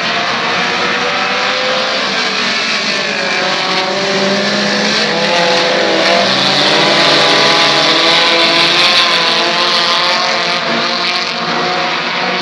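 Several dirt-track race cars' engines running in a pack around the oval, their pitches rising and falling as they rev and lift for the turns. The sound swells to its loudest around the middle, as the pack passes, then eases off.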